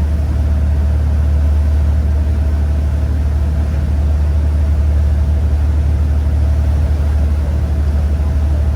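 Loud, steady low drone of an engine running at constant speed, with a thin steady hum above it.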